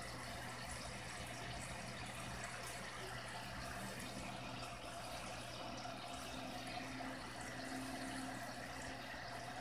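Faint steady hum with an even hiss: background room tone.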